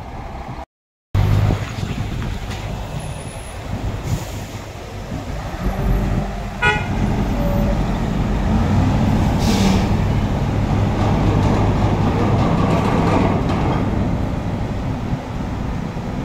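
Diesel engine of a Hino 500 semi-truck running at low revs, steady and fairly loud, swelling through the middle. A brief sharp chirp about a third of the way in and a short burst of air hiss a little past the middle.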